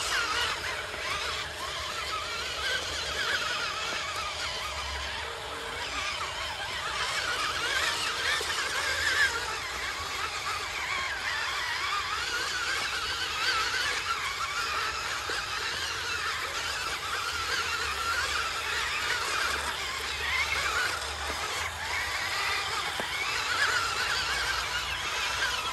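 Radio-controlled dump truck's electric motor and gearbox whining as it crawls loaded over rough, muddy ground, the pitch wavering constantly up and down with the throttle.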